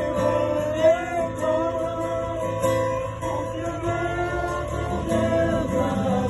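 Worship music: guitar accompaniment with a singing voice.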